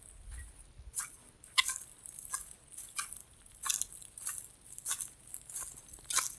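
Footsteps crunching on dry ground, a step about every two-thirds of a second.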